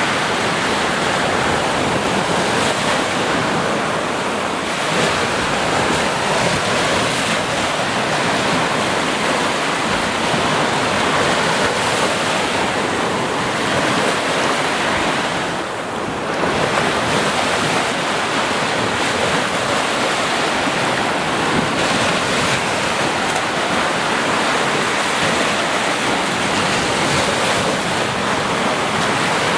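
Sea waves washing continuously onto a beach, a steady surf hiss with a brief lull about halfway through.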